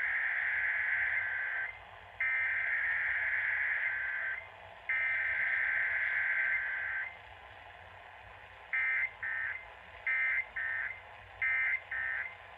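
Emergency Alert System SAME data bursts received over a radio: three long warbling digital tone bursts of about two seconds each, then, after a pause, three pairs of short bursts, the end-of-message code.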